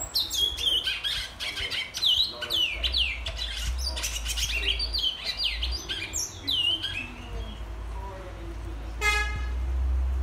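Caged seed-finch (bicudo / twa-twa) singing a fast, continuous run of high whistled notes, most sliding downward, for about seven seconds. A single short, reedy toot sounds about nine seconds in.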